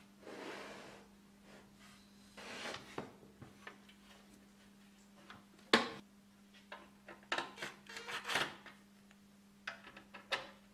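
Handling noises of a compressor pump on a wooden workbench: the unit is shifted and scraped across the bench, a sharp knock about six seconds in, then a run of short clicks and scrapes as a cordless drill-driver is put to the fan-cowl screws.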